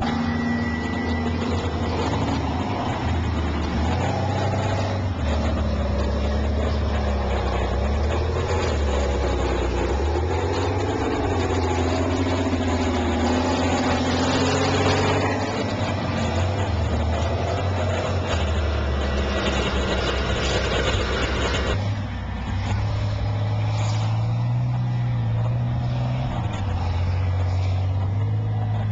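Merkava tank engine running with a heavy low rumble and a wavering higher whine, and the sound shifts abruptly about three quarters of the way through.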